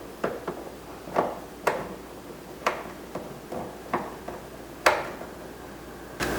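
Irregular light clicks and knocks, about nine of them, of a screwdriver and small screw being worked into a plastic car interior door panel.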